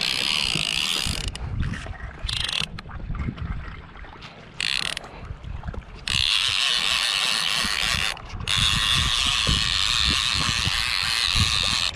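Conventional fishing reel giving out line in spurts, its drag or clicker buzzing each time line leaves the spool. The spurts grow longer, the last running for several seconds. Low wind and water noise lies under it.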